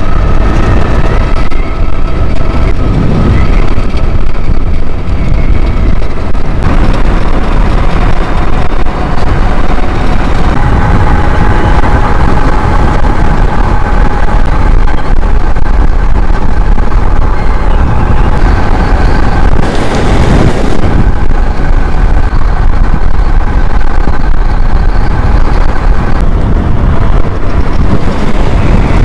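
Heavy wind buffeting the microphone on an electric bike at speed, over a steady whine from the Tuttio e-bike's motor, driven by a Fardriver controller well past its rated continuous power. The whine's pitch shifts about ten seconds in, and a brief louder rush comes about twenty seconds in.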